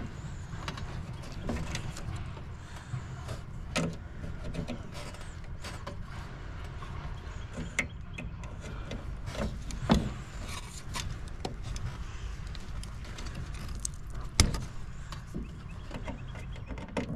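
Scattered clicks and knocks of hands working on a furnace control board and its wiring, over a steady low hum; the two sharpest knocks come about ten and fourteen seconds in.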